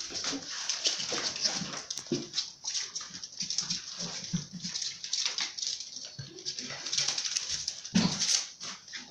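German shorthaired pointer puppies playing, making a continuous irregular jumble of short whimpers and yips, with a louder burst about eight seconds in.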